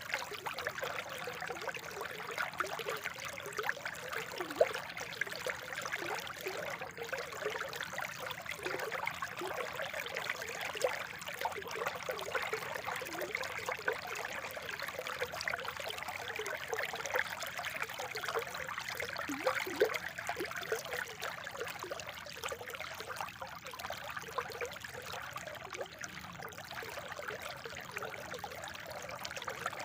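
Water from a spring trickling and burbling steadily, with many small bubbling plips throughout.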